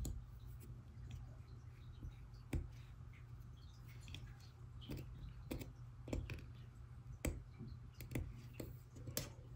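Small, irregular clicks and taps of tweezers and fingertips working on an opened iPhone 2G's metal shield plates and frame, about a dozen scattered through, over a faint steady low hum.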